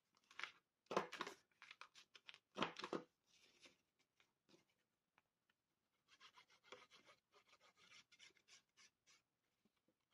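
Quiet handling of cardstock and paper pieces. There are a few short rustles and taps in the first three seconds, then a stretch of soft, scratchy rubbing of paper from about six to nine seconds in.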